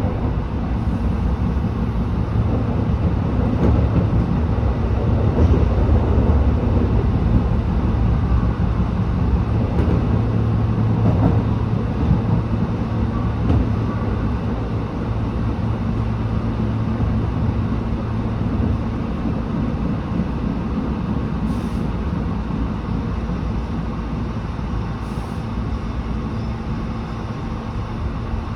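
Tobu 8000-series electric train rolling and braking to a stop at a station platform: a steady rumble that eases off as it slows, with a low hum that ends about two-thirds of the way through and a higher steady hum after it. A few short hisses near the end.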